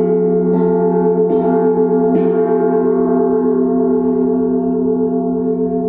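A 20-inch Gu Bao gong with a raised centre boss, struck with a soft padded mallet at the start and three more times over the first two and a half seconds. It is then left to ring, its tones pulsing slowly.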